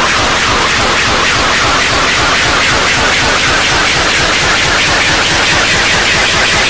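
Many character voices saying names all at once, layered into a loud, distorted, static-like cacophony with a fast low flutter throughout.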